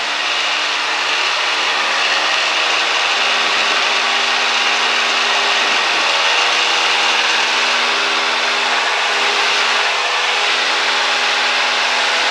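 Cessna 172's piston engine and propeller at full takeoff power, heard from inside the cockpit: a loud, steady drone with a low engine hum under it, building over the first couple of seconds as the plane accelerates down the runway for liftoff.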